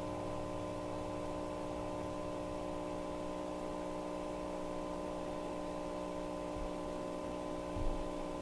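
A steady droning hum made of several held tones, unchanging throughout, with a faint low thump near the end.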